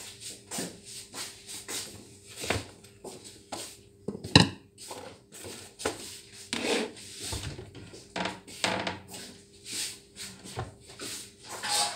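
Kitchen handling sounds: a plastic bowl and bag rustling and scraping on the counter, with a run of light knocks and one sharp knock about four seconds in. Near the end come knocks from a wooden wall cabinet door.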